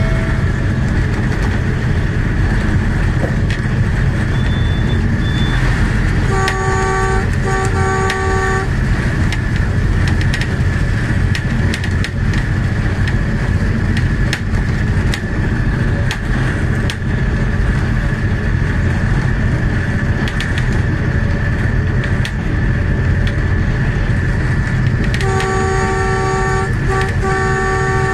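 ZCU-30 diesel locomotive running at speed: a steady low rumble of the engine and the wheels on the rails. Its multi-note horn sounds two blasts about six and a half seconds in, and a series of blasts near the end.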